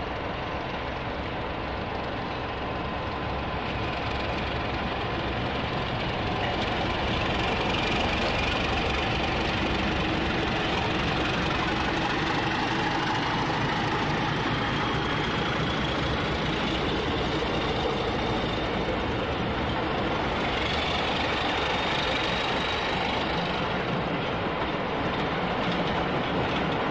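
Diesel locomotive hauling a train of coaches past on the adjacent track: engine running under load, growing louder a few seconds in, then the coaches' wheels rolling by with a faint thin high whine.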